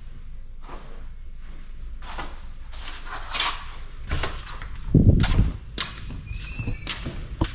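Footsteps and handling noise as a door is opened by its knob, with scattered clicks and knocks and a heavy low thump about five seconds in.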